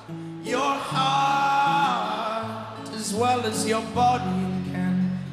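Live folk-rock band playing: a male lead voice sings long held notes over acoustic guitar and a low bass line that steps between notes.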